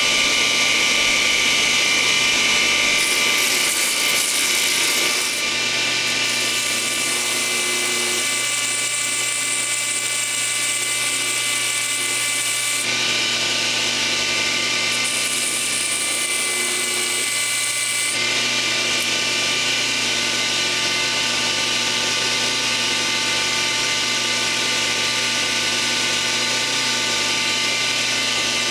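Belt grinder running with a steady electric-motor whine while the steel blade of a vintage chef's knife is ground against the abrasive belt. The grinding hiss swells and eases several times as the blade is pressed on and lifted off.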